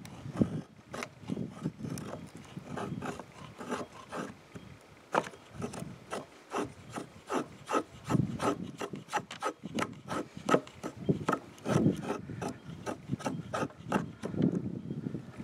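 A 1084 carbon-steel Kephart-pattern knife shaving feather-stick curls down a stick of fatwood: repeated short scraping strokes of the blade through the wood, about two a second.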